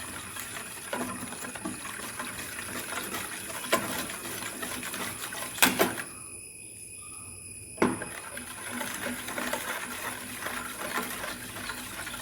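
Amrutham podi powder being stirred into thin coconut milk in a bowl to keep it from lumping: a steady wet swishing with light scraping against the bowl, and two sharper clinks about six and eight seconds in.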